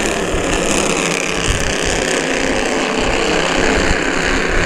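Bandolero race cars' small Briggs & Stratton engines running hard as a pack of four at racing speed just after a green-flag restart, a steady engine drone.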